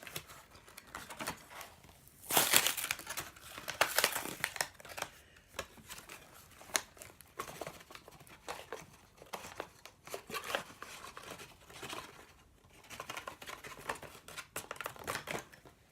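Wrapper of a football card pack crinkling and tearing as it is opened, with the cards rustling in the hands; the loudest crinkles come a couple of seconds in and again about four seconds in.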